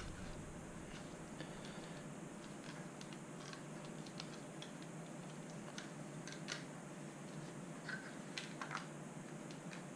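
Faint, scattered plastic clicks and taps as gloved hands fit a part into an Audi S4 B7 headlight housing, working at its snap-in tabs, with a few sharper clicks in the second half.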